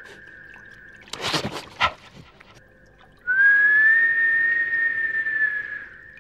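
A high, steady whistled note that dies away, then comes back loud a little past three seconds in and holds for nearly three seconds before fading. A short, harsh burst of noise cuts in about a second in.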